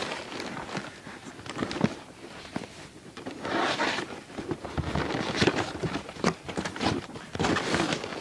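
Packaging of an airsoft gun box being opened and handled: irregular rustling and scraping with several short clicks and knocks.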